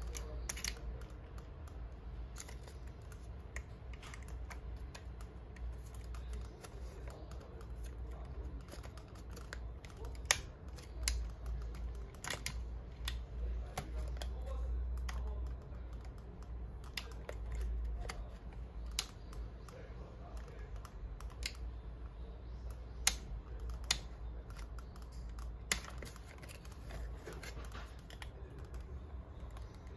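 Small clicks, taps and rustles of a 120 film roll and its spool being fitted into a Pentax 67's film chamber, scattered irregularly, with a few sharper clicks of plastic or metal parts. A low steady hum lies underneath.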